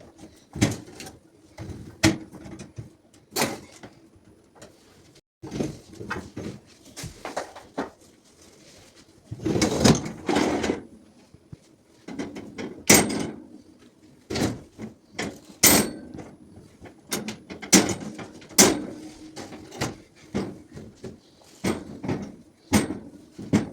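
Fruit being handled and set into dishwasher racks: a string of irregular knocks and clacks, with a longer rattling scrape about ten seconds in.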